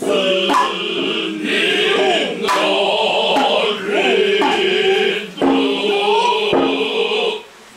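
Noh music: male voices chanting in chorus (utai), with sharp hand-drum strikes among them. The sound drops away almost to nothing just before the end.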